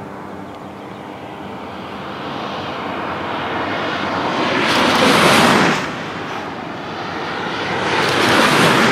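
Two wingsuit flybys in quick succession. Each is a rushing whoosh of air over the suit that swells steadily and cuts off sharply as the pilot passes: the first about five and a half seconds in, the second at the very end.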